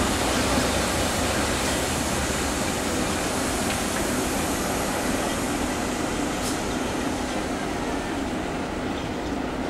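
Electric locomotive running away along the station tracks: a steady rumble and hiss that slowly fades.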